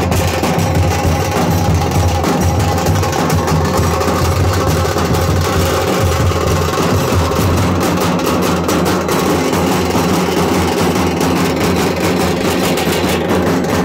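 Large double-headed bass drums and smaller stick-played side drums beaten together by a street drum troupe, a loud, dense, continuous drumming rhythm with a heavy low boom.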